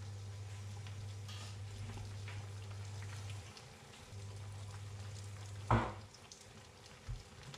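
A pot of instant noodles boiling on a stovetop with a soft bubbling crackle, over a steady low hum that cuts out a little after three seconds in and comes back. A sharp thump sounds about six seconds in, and a smaller knock follows a second later.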